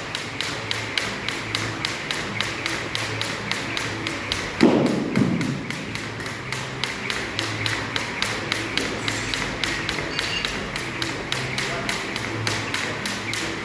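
Jump rope slapping the floor in a fast, even rhythm of about four ticks a second, with one heavier thud about four and a half seconds in.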